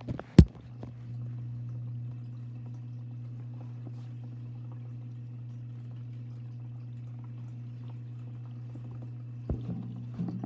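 A steady low hum with a sharp knock about half a second in, and a few faint clicks near the end.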